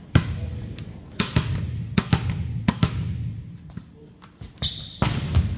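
Volleyball slapped and bouncing on a hardwood gym floor: a run of sharp, echoing smacks in quick, uneven succession, bunched in the first three seconds and again near the end.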